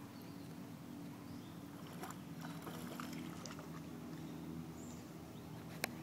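A dog wading in shallow lake water, with faint light splashes over a steady low hum, and one sharp click near the end.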